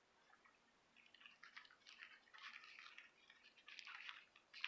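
Faint, irregular rustling and crinkling of a dried, emptied paper tea bag being handled.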